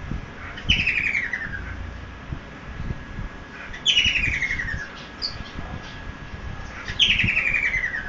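Cockatiel calling three times, a few seconds apart. Each call is a raspy, pulsing whistle about a second long that slides down in pitch. Soft low thumps sound in between.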